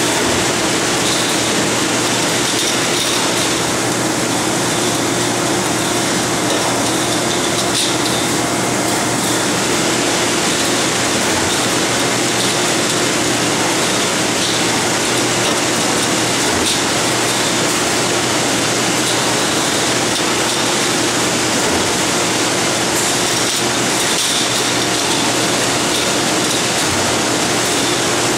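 Steady factory machinery noise with a constant hum, and a few faint light clicks of metal tubes being slotted into a corrugated radiator fin core.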